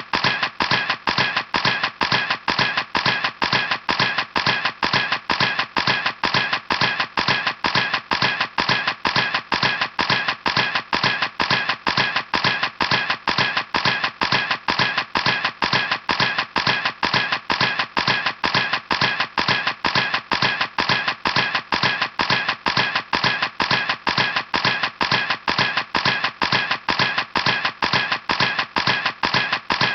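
Camera shutter clicking over and over at an even pace, about three clicks a second, each click alike.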